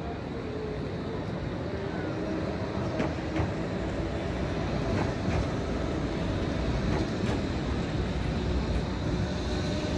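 Articulated low-floor electric tram rolling past close by. It makes a low rumble that grows steadily louder as it nears, with a faint steady hum.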